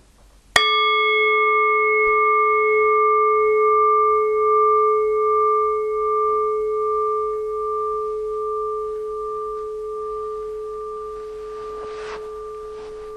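A meditation bell is struck once, ringing a long, wavering tone that slowly fades. It marks the close of the guided meditation.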